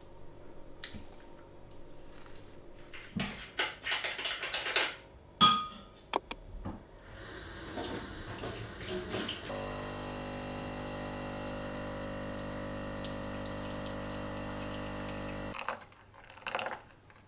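Espresso machine pump running with a steady hum for about six seconds while espresso pours into a cup, cutting off suddenly near the end. Before it come scattered clicks and clatter of handling.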